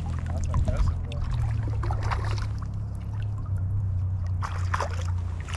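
Water splashing and trickling as a hooked rainbow trout is played in through the shallows, in short splashy strokes over a steady low rumble.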